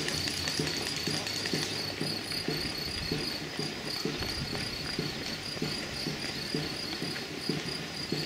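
Footfalls of many runners on an asphalt path, an uneven stream of soft steps several a second, with a steady, high, pulsing chirp of crickets behind them.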